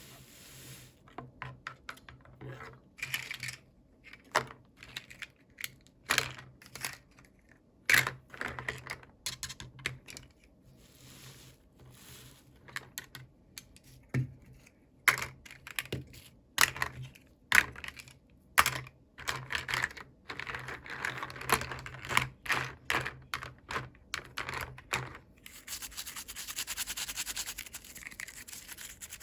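Hands unboxing small plastic toy packaging: many irregular clicks, taps and scratchy rustles, then a steady rubbing rustle over the last few seconds.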